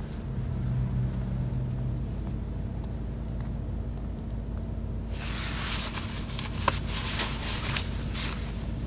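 Clothing rustling as a car seat belt is pulled across and handled, with several sharp clicks, over a steady low hum in the car cabin.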